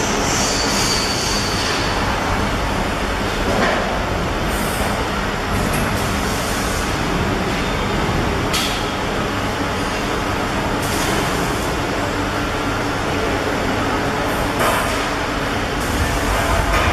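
Horizontal flow-wrap packaging machines running: a steady mechanical din, with short high hisses now and then.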